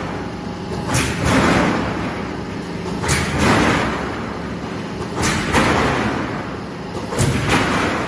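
Silo corrugated-sheet roll forming machine running. Four times, about two seconds apart, a sharp knock sets off a swelling rush of metal noise that fades over about a second.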